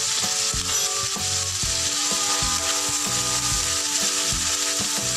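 Ground pork, onion and chili garlic sauce sizzling in a nonstick frying pan, with a spatula stirring and scraping against the pan. Background music plays under it.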